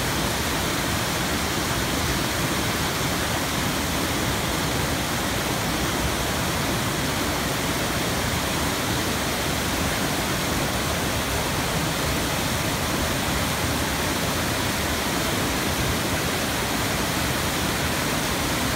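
Waterfall cascading over tiered rock ledges: a steady, unbroken rush of water.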